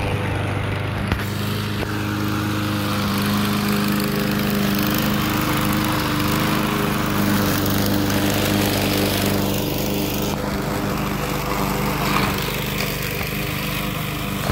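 Walk-behind gas lawn mower engine running steadily while being pushed across grass.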